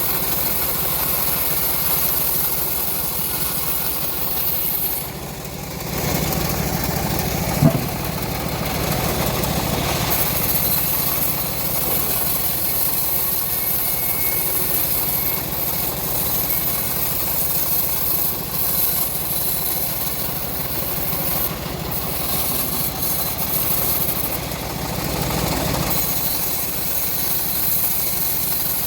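Homemade bandsaw sawmill running steadily while ripping old teak into beams. Its level drops briefly about five seconds in, and there is a single sharp knock just after.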